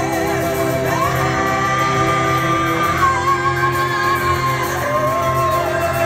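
A live rock band playing: singing over acoustic and electric guitars, violin and drums, with long held notes that slide from one pitch to the next.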